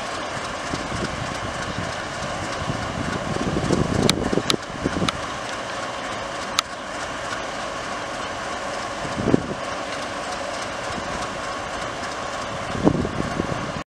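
Twin WDG3A diesel locomotives running steadily with their ALCO V16 engines. A few sharp clicks come about four to seven seconds in, and dull thumps come now and then.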